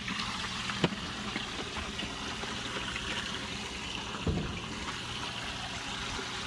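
Water running steadily into an aquaponics fish tank, a continuous splashing trickle, over a low steady hum. A sharp click comes about a second in and a knock a little after four seconds.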